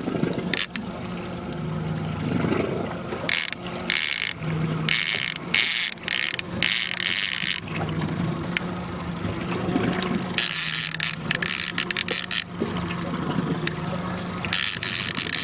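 Fishing reel whirring in repeated short bursts while a big chinook salmon is fought on the line, over the steady hum of the boat's engine running.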